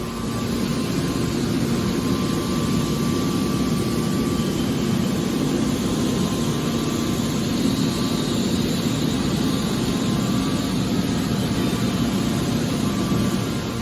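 Heavy machinery running steadily: a continuous low drone with a faint steady hum above it, growing slightly louder in the first second or two.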